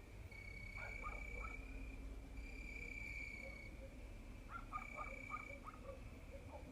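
Crickets trilling in long, even bouts of a second or two with short breaks between them. Short lower-pitched calls come in twice, about a second in and again near five seconds.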